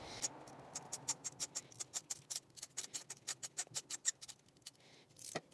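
Ratchet wrench clicking fast and evenly, about seven clicks a second, while a new spark plug is threaded in by hand through a socket and extension. The clicking stops about four and a half seconds in, followed by one louder click.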